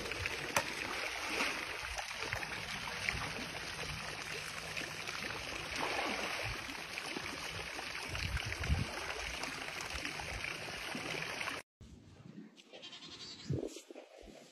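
Water splashing as a jaguar swims through a pool, over the steady rush of a pool fountain. The water sound cuts off suddenly near the end.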